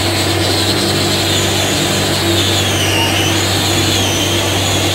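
Steady drone of ship's machinery, a constant low hum with a high whine above it that wavers slowly in pitch.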